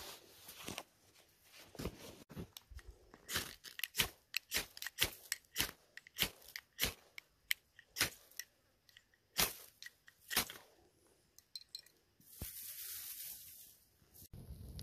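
A fire being lit in dry grass and fluffy tinder: a long run of sharp, irregular clicks and crunches as the tinder is worked by hand, then a brief hiss near the end as the flame takes.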